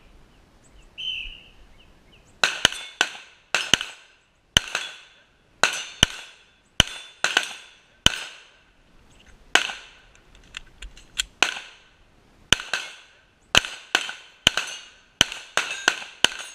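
A short beep about a second in, the start signal of a shot timer, then a pistol fired in quick pairs and strings of about two dozen shots. Many shots are followed by a ringing, typical of rounds hitting steel targets.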